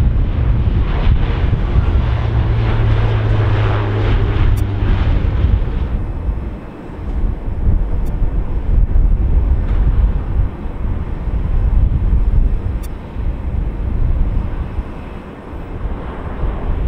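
A Dash 8 Q400 turboprop on the runway, its propellers giving a steady low hum over engine rumble. About six seconds in, this gives way to an Airbus A320-family jet touching down and rolling out: a broad, rising and falling rumble with wind buffeting the microphone.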